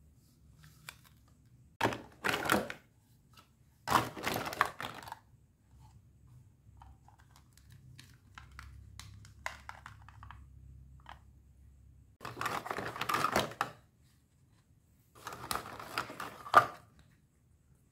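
Hard plastic toy fruit pieces clacking and clattering against each other in a cardboard box as hands rummage through them, in four separate bursts.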